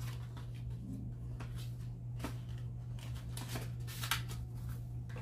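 Paper and cardboard rustling in several short, scattered handling noises as a printed instruction manual and its white box are turned over in the hands, over a steady low hum.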